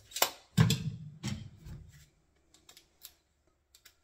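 A steel tape measure's blade retracting into its case and snapping shut, with a rattle as the tape measure is set down on the cabinet. This is followed by a few light clicks of screws and a cordless impact driver being picked up.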